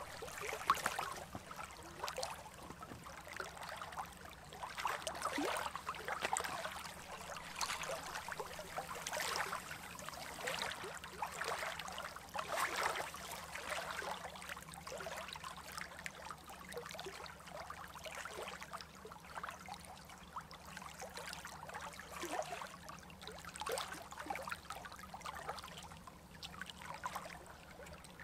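Small waves lapping and trickling against a rocky shore, an irregular splashing that is busiest in the first half and settles lower later.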